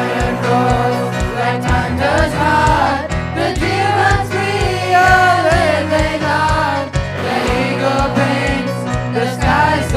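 School choir singing over backing music with a steady beat of about three strokes a second.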